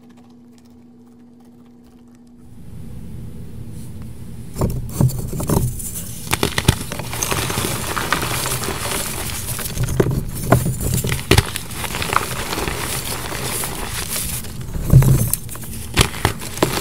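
Hands crushing and crumbling blocks of gym chalk into powder: a steady powdery crunching and crackling with sharper snaps as blocks break, starting about two seconds in after a faint low hum.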